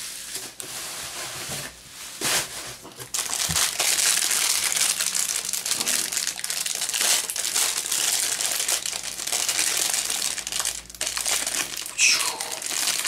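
Plastic bubble wrap being crinkled and pulled off an action figure by hand, a near-continuous crinkling with a few brief pauses. A short falling squeak near the end is the loudest moment.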